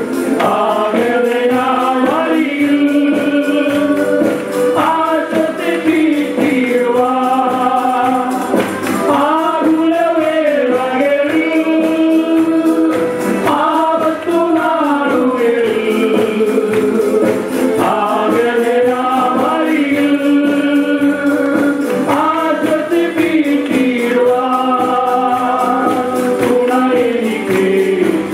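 Live worship music: men's voices, joined by others, sing a Malayalam worship song over keyboard, acoustic guitar and violins, with a steady percussion beat running through it.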